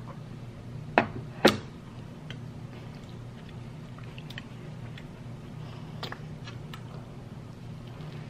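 White ceramic bowl set down on the table with two sharp knocks about half a second apart, near the start. Then faint chewing and mouth sounds with small clicks, over a steady low hum.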